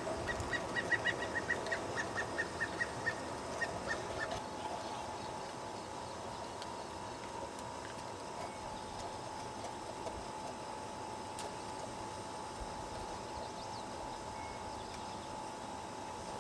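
A bird calling: a rapid series of short, high notes, about four a second, that fades out after about four seconds, leaving steady outdoor background with a faint constant hum.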